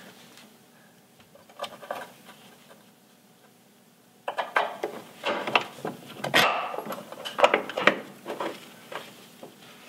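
Steel lift shackle and its bolt clinking and knocking against the frame's spring-hanger bracket as they are fitted. A couple of small clicks at first, then a run of metal clanks starting about four seconds in.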